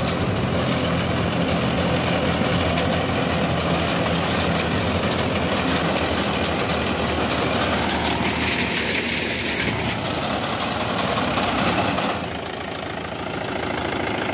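Mahindra tractor's diesel engine running steadily while it drives a reaper binder cutting standing wheat. About twelve seconds in, the sound drops a little and grows duller.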